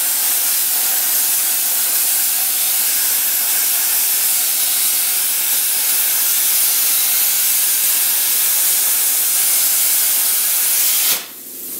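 Plasma torch cutting lengthwise through half-inch-wall square tubing: a loud, steady hiss that cuts off abruptly near the end as the cut is finished.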